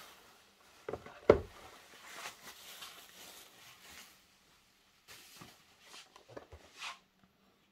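Handling noise from unpacking a boxed model railway coach: bubble wrap and plastic packaging rustling as the box is pulled out and turned in the hands, with one sharp knock about a second in.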